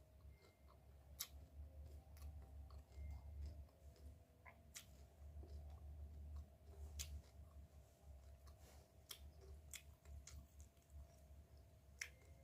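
A person chewing paddy-field crab, faint, with irregular sharp clicks and cracks of the crab's shell and mouth sounds.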